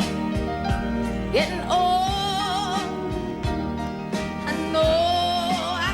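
Country song with singing over a band keeping a steady beat; long wavering held notes come about two seconds in and again near the end.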